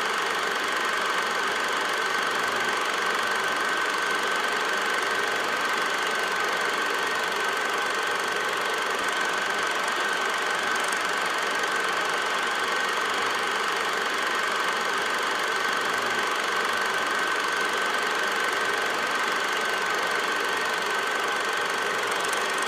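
8mm film projector running: a steady mechanical whir with a constant high-pitched whine over it, unchanging throughout.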